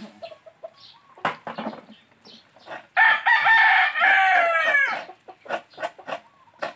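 A rooster crows once, about three seconds in: one loud call about two seconds long that falls in pitch at its end. Short scattered clicks and taps come before and after it.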